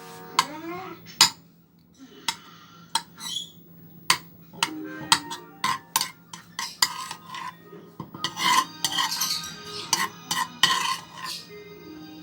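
A spoon stirring ghee melting in a pan, with many sharp clinks and scrapes against the pan, busiest in the second half.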